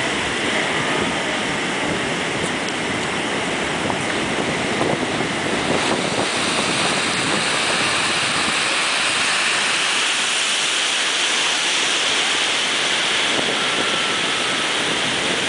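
Large ocean surf breaking and washing in a steady rush, swelling about halfway through, with wind on the microphone.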